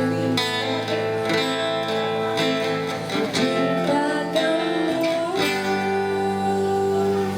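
Acoustic guitar music: strummed chords changing every second or so, with a long held chord near the end.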